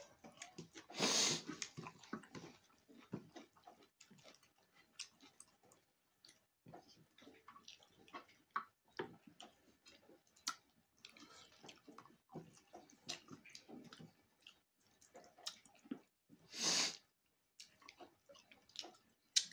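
Close-up eating sounds: scattered chewing and small clicks throughout, with two louder short noisy sounds, one about a second in and one near the end.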